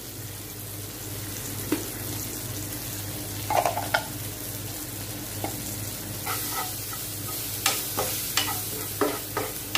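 Onions and tomatoes frying in oil in a metal pan with a steady sizzle, while a steel spoon clinks against the pan a few times and then scrapes and knocks as the masala is stirred, most busily in the last few seconds.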